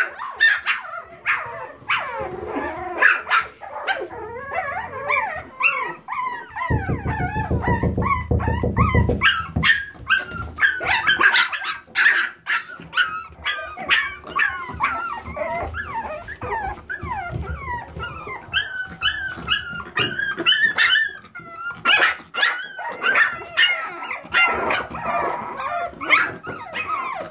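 Frenchton puppies (Boston terrier x French bulldog mix) playing together: many high yips and whines with some growls and small barks, over scattered sharp clicks. About seven seconds in, a low buzzing rumble lasts a couple of seconds.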